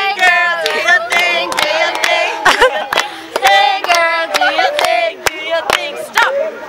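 A group of women and girls chanting and cheering in high voices, with sharp hand claps.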